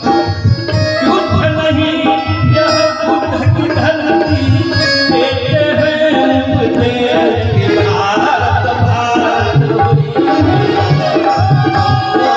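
Indian folk music: a tabla keeps a steady rhythm under held melodic tones.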